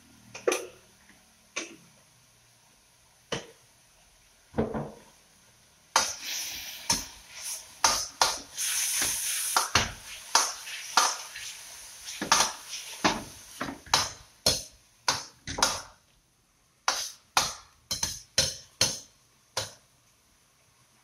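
Metal wok ladle knocking and scraping against a stainless steel wok while stir-frying pork and asparagus: a few separate clanks at first, then quick strokes several a second. From about six seconds in, the food sizzles in the hot wok under the strokes, fading after a few seconds.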